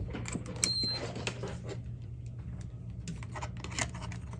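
Small scattered clicks and taps of multimeter test leads and probes being handled over a steady low electrical hum, with a brief high beep just under a second in.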